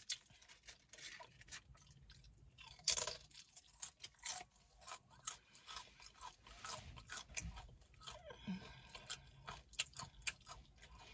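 Crisp tortilla chips being bitten and chewed close to the microphone, a long run of sharp crunches.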